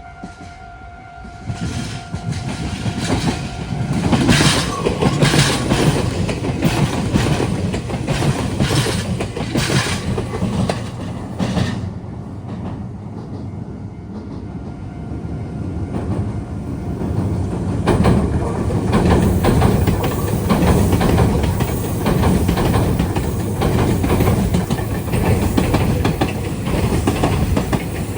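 Meitetsu electric trains passing close by: a loud rumble with the wheels clattering rhythmically over rail joints and points. The noise eases for a few seconds about halfway and swells again from about 18 seconds in. A level-crossing warning tone is heard briefly at the very start.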